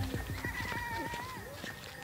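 An animal bleating faintly with a wavering pitch, while background music with a beat fades out early on.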